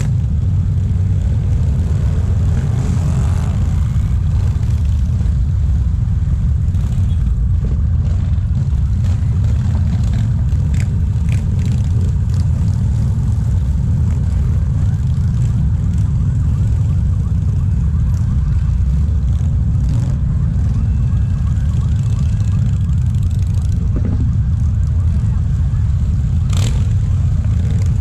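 Many cruiser motorcycles riding past together in a dense parade, their engines blending into one loud, steady low rumble.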